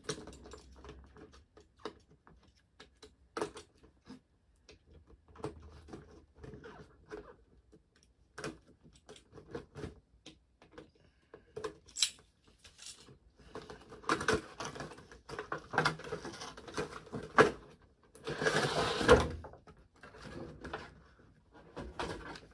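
Cardboard figure box and clear plastic blister tray being opened by hand: scattered taps, clicks and scrapes, with a louder burst of rustling and scraping about three-quarters of the way through.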